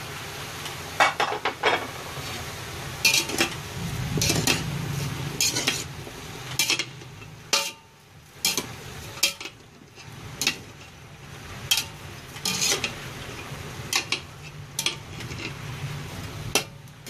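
Metal spoon stirring diced pork, carrots and potatoes in a pressure cooker pot, with irregular clinks and scrapes against the pot's metal sides and bottom.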